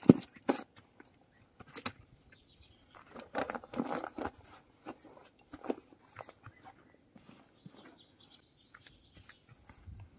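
Someone handling camping gear close by: a sharp knock at the very start, a few lighter knocks, a second or so of rustling about three to four seconds in, then scattered small clicks and steps on the pine-needle ground.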